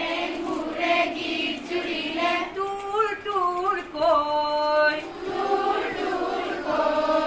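A woman singing a song into a microphone, with long held notes and pitch slides between them.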